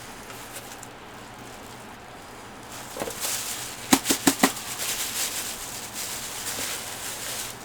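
Shredded paper packing rustling and crackling as hands dig through a box. It starts about three seconds in, with a quick run of sharp crackles a second later, then rustles on.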